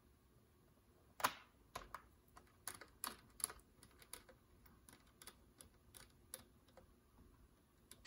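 Small screwdriver turning a screw into a laptop's bottom cover: a run of faint, irregular clicks as the bit works and now and then jumps in the screw head, the loudest about a second in.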